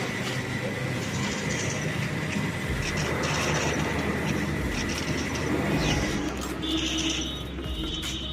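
Steady vehicle and traffic noise with a low engine hum and a faint steady high whine.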